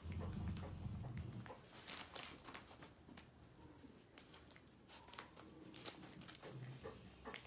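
Puppies' paws stepping on and nosing sheets of newspaper, making faint scattered rustles and crinkles. A low rumble runs through the first second or so.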